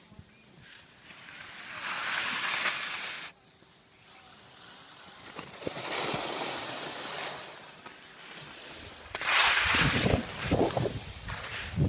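Skis scraping over snow in two long hissing swells, the first cutting off sharply; from about nine seconds in, wind buffets the microphone, louder than the skis.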